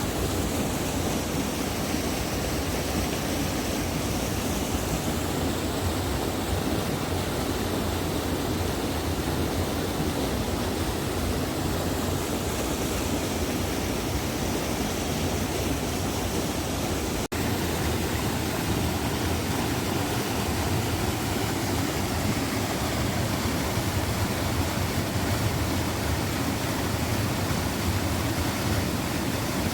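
River of icy water rushing over stones: a loud, steady rush, with a split-second break partway through.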